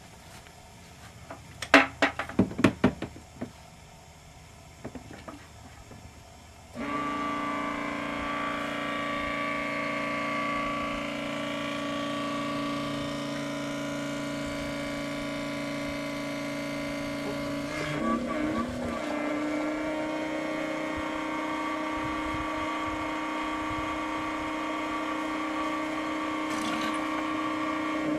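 A few sharp knocks, then an electric fuel transfer pump switches on suddenly about seven seconds in and runs with a steady hum, its pitch stepping slightly higher about eighteen seconds in as it pumps biodiesel into the car.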